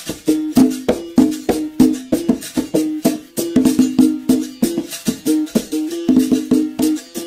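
Berimbau played in a steady rhythm: the stick strikes the steel string about three times a second, switching between two close notes, with the caxixi rattle hissing on each stroke.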